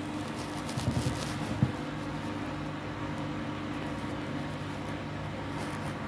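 Candy front-loading washing machine running its interim spin with a wet bedding load: a steady motor hum as the drum turns, with a couple of thuds from the load about one and one and a half seconds in.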